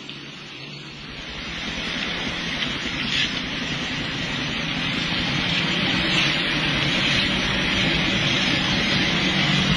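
Steady rain and the hiss of cars driving along a wet road, growing louder from about a second in.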